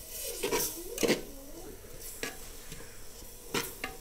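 A steel slotted spoon stirring thick masala with yogurt in a clay pot, scraping and knocking against the pot's sides several times at irregular intervals, over a faint sizzle of the masala cooking.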